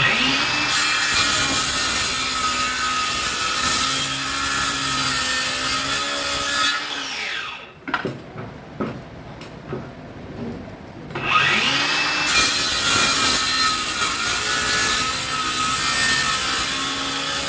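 Dongcheng DCMY185 cordless 7-inch circular saw cutting hard, heavy timber twice. It runs under load for about seven seconds, then winds down with a falling whine. After a few knocks of handling, it spins up again and runs through a second cut.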